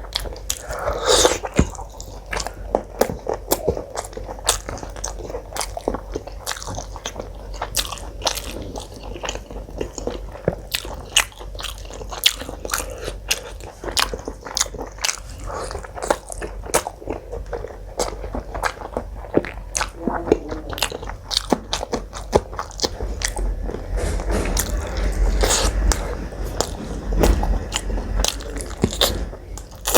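A person chewing and biting food close to the microphone, a dense run of short crunchy mouth clicks, with a low rumble in the last few seconds.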